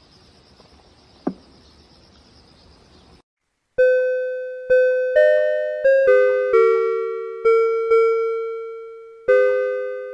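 Faint outdoor background hiss with one short, sharp sound about a second in, cutting to silence at about three seconds. Then a clean electronic chime melody starts: bell-like, piano-toned notes, each struck and fading, one every half second to a second.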